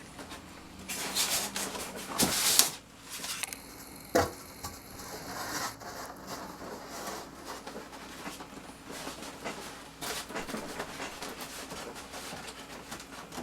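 Rustling and light knocks as foam model-airplane parts and their packaging are handled, with the loudest rustle about two seconds in and a sharp knock a couple of seconds later.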